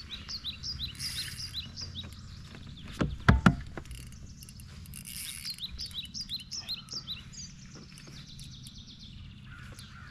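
A songbird singing two phrases of quick, repeated high chirps, one at the start and one a few seconds later, over steady low outdoor background noise. A few sharp knocks about three seconds in are the loudest sound.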